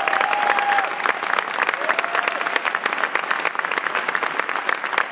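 Audience applauding, with dense, steady clapping. A single voice holds a long, level call over it in the first second, and a shorter one about two seconds in.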